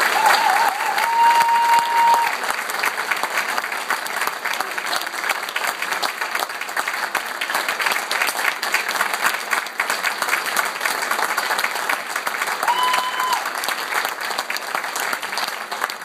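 Audience applauding with steady, dense clapping, a little louder for the first couple of seconds. A short whistle sounds over the clapping near the start, and another about three-quarters of the way through.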